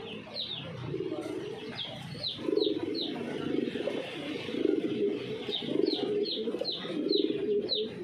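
Caged fancy pigeons cooing: repeated low, pulsing coos about once a second. Short, high, falling chirps from another bird come in little clusters of two or three over them.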